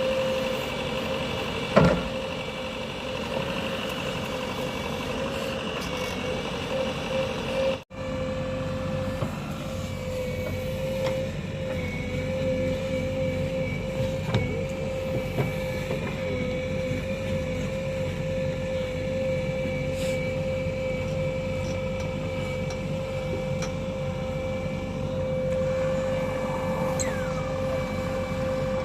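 JCB 3DX backhoe loader's diesel engine running steadily under work, with a sharp knock about two seconds in and a brief break in the sound near eight seconds.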